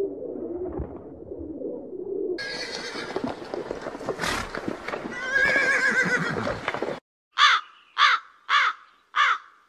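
A short low warbling coo from pigeons, then a horse whinnying, then crows cawing, four harsh caws about twice a second in the last two seconds.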